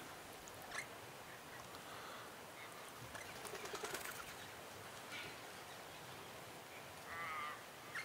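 Australian magpies at a bird feeder, faint: a single click just under a second in, a quick run of clicks about three to four seconds in, and a short wavering call near the end.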